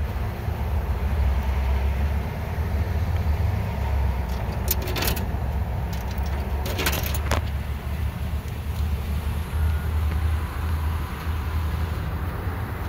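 Coins dropped into a payphone's coin slot: two short runs of metallic clinks, about five and seven seconds in, over a steady low rumble.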